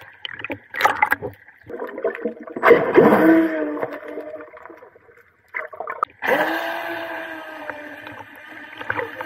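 UDIRC UDI005 RC speed boat's brushless motor whining in short runs over water splashing. The longest run starts about six seconds in, its pitch dropping at first and then holding steady for about three seconds.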